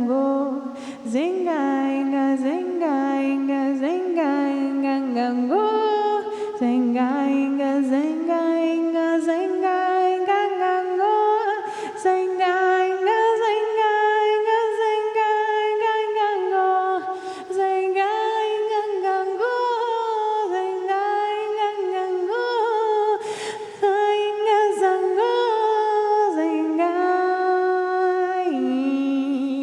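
Wordless a cappella vocal channeling: a single voice sings long held notes without words. It opens with a few short upward-swooping notes, then slowly climbs to higher sustained tones, with a few brief breaks.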